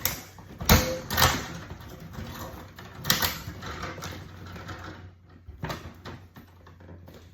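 Clicks, knocks and clatter from work inside an electrical panel, as wires are being removed from it. The loudest strikes come in a pair about a second in, with more near three and near six seconds, over a steady low hum.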